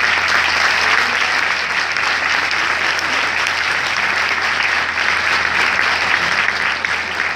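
Audience applauding: a dense, steady round of many people clapping.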